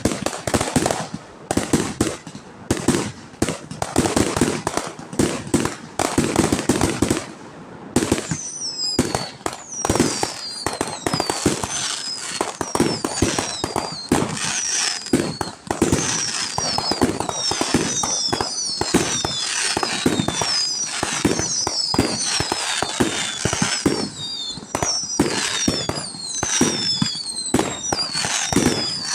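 Fireworks display: a rapid, continuous run of booms and sharp cracks. From about a third of the way in, many high whistles falling in pitch sound over the bursts.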